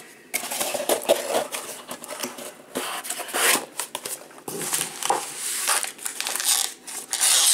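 Crinkling and rustling of a paper sleeve and foil card-pack wrappers being handled, with irregular bursts and a few soft knocks from a cardboard box being moved.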